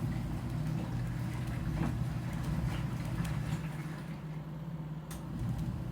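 Portable washing machine motor humming steadily while it agitates clothes in water on the wash cycle, with a few faint light clicks. The hum eases off slightly about four seconds in.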